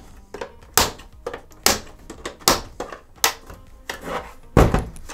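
Plastic clips of an Xbox One S bottom panel snapping loose one after another as a pry tool works along its edge: a series of sharp clicks about once a second, the loudest a little before the end.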